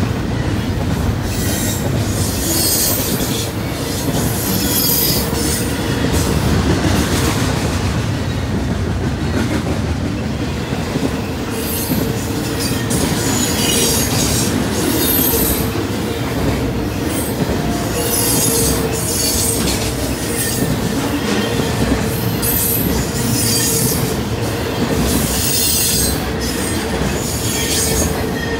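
A BNSF intermodal freight train's loaded well cars and trailer flats rolling past close by at speed: a steady, loud rumble and clatter of wheels on rail. High-pitched wheel squeal comes and goes every second or two over it.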